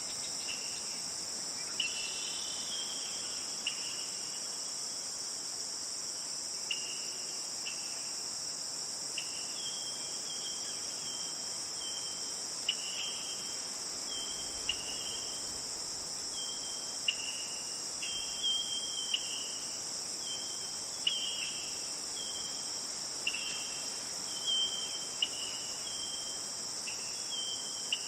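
Night insects, crickets, trilling in a continuous high-pitched chorus. Short, lower chirps repeat irregularly over it, about one a second.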